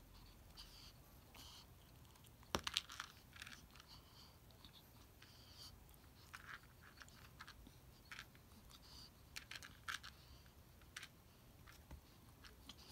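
Faint, scattered rustles and soft taps of a kitten batting at a string teaser toy and scuffling on tatami mats, with one sharper tap about two and a half seconds in.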